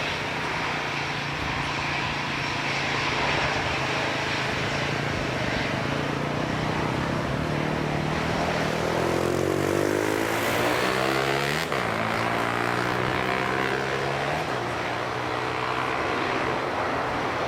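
Airbus A320's twin jet engines at departure thrust, a steady loud roar with a sweeping, shifting tone as the airliner passes closest, about two-thirds of the way through.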